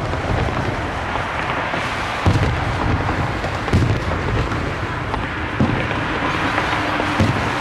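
Fireworks display: aerial shells bursting with four deep booms about one and a half to two seconds apart, over a continuous crackling rumble.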